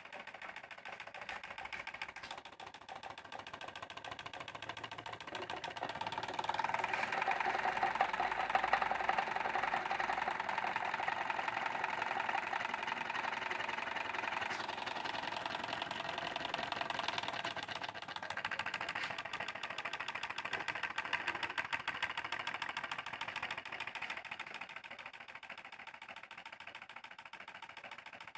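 Homemade tin-can gamma-type Stirling engine running with a fast, even mechanical clatter. It grows louder about six seconds in and fades toward the end.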